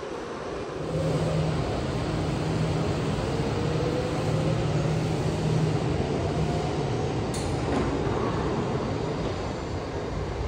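Train running: a steady rumble with a low hum that sets in about a second in, and a faint rising whine in the middle.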